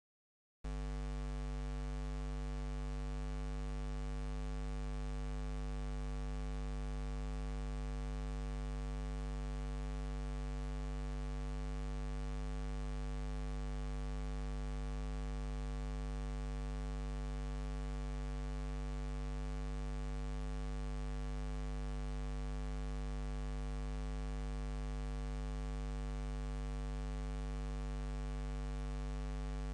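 Steady electrical mains hum with a stack of overtones and a faint hiss, switching on abruptly about half a second in and running unchanged.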